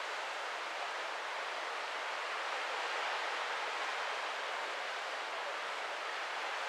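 Steady, even rushing noise of wind and sea water streaming past a moving cruise ship, with no distinct events.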